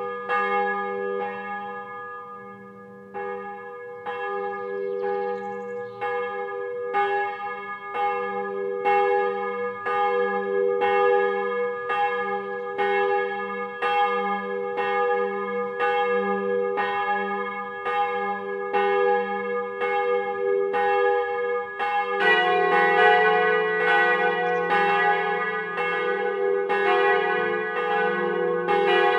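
Bronze church bells, cast by Ruetschi in 1927, swinging and ringing. At first a single bell is struck by its clapper about once a second. About 22 seconds in, a second, lower bell joins in, and the strokes overlap in a denser, louder peal.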